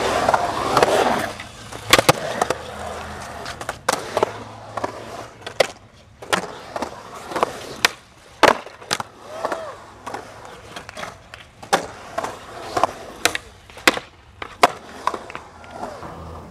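Skateboard wheels rolling on concrete in a skatepark bowl, broken by many sharp, irregular clacks of the board and wheels hitting the concrete. The rolling is loudest in the first two seconds.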